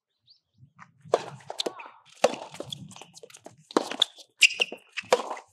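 Soft tennis rally: the soft rubber ball struck by rackets several times, roughly a second or more apart, with shoes squeaking and scuffing on the hard court between the hits.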